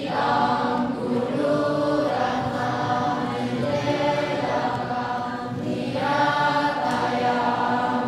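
A group of children chanting Tibetan Buddhist prayers together in unison, read from the prayer texts, with many voices on held, shifting pitches and a brief pause about five and a half seconds in.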